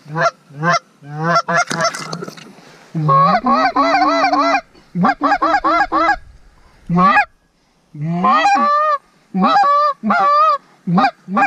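A DUX goose call blown in a fast series of short honks and clucks, each note breaking from a low grunt up to a high tone, with a quicker rolling run of notes about three seconds in and a brief pause past the middle, calling to a passing flock of Canada geese.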